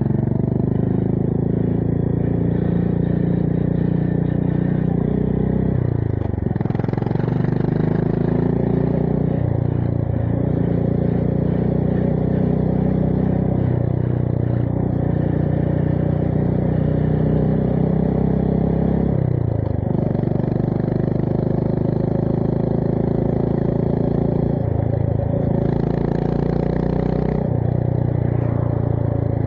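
Honda GB350S's single-cylinder engine running through a MILLER Spitfire slip-on exhaust under way, its note holding steady and then dipping briefly and picking up again about six times.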